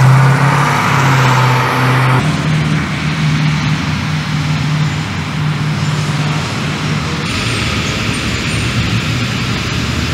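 Steady motor-vehicle engine hum with a low droning tone over a wash of noise, changing abruptly about two seconds in and again around seven seconds.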